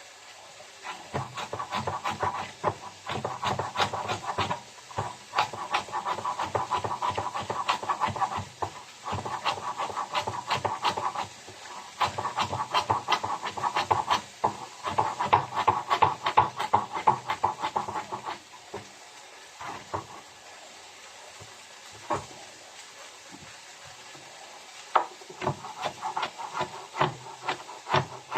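Knife chopping a green chili on a cutting board in quick, rapid strokes, with short pauses, then slowing to a few scattered cuts before picking up again near the end.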